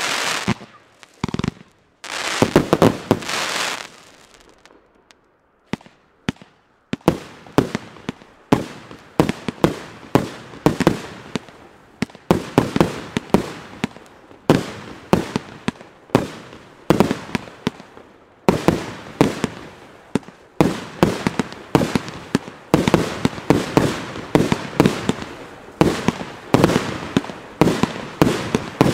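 Fireworks going off: a dense crackling burst, a short lull with scattered cracks about four to seven seconds in, then rapid shots and bangs, several a second.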